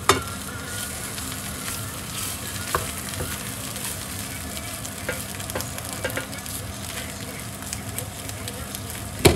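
Chanterelles frying in butter in a pan, sizzling steadily, while a utensil stirs and knocks against the pan. There is a sharp knock right at the start and a louder one near the end, with lighter clicks in between.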